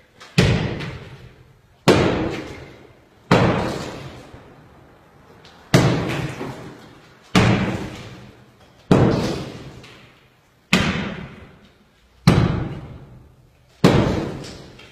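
Heavy hammer blows striking a concrete-block wall, nine strikes about every one and a half seconds, each followed by a long echoing decay.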